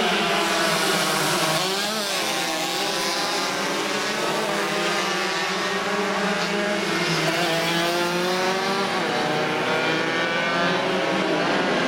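Engines of a pack of small classic racing motorcycles (cuppers) accelerating and riding past. Several high-revving engines overlap, their pitches rising and falling as the bikes go by.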